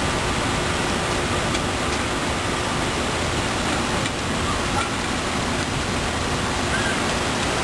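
Heavy rain pouring steadily, a dense even hiss with no breaks.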